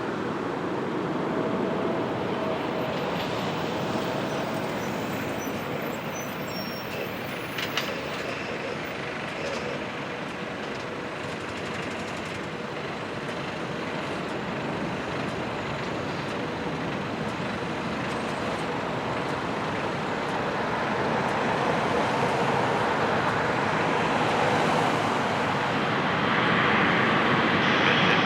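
Jet airliner on approach to land, a steady distant rumble that grows louder over the last several seconds as it nears.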